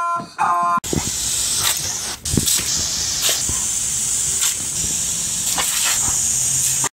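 A squeaky rubber chicken toy squawking, cut off within the first second by the steady hiss of a garden hose spraying a hard jet of water, with a few sharp snaps scattered through it.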